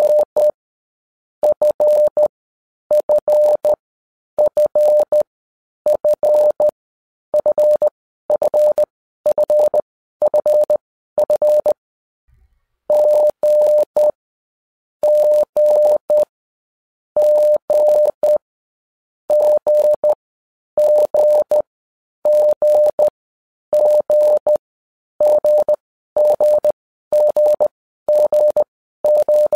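Morse code sent as a beep tone of one steady pitch, keyed on and off in short and long beeps grouped into letters, with short pauses between the groups and one longer pause about halfway through.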